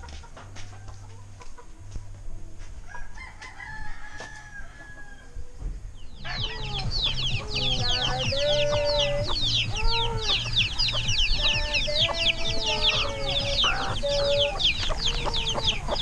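Free-ranging chickens: roosters crowing and hens clucking, the calls coming thick and overlapping from about six seconds in. Behind them a dense, high chittering sets in at the same moment and runs on.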